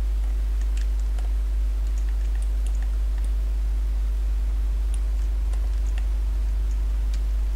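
Scattered computer keyboard presses and mouse clicks, a handful of faint, sparse clicks, over a steady low hum.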